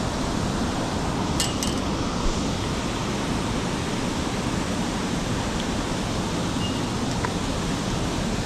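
Steady rushing noise with no change in level, with a couple of light clinks about a second and a half in.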